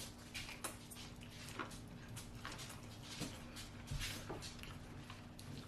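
Close-miked chewing of corn on the cob: irregular wet clicks and squishes of kernels being bitten and chewed, over a faint steady hum.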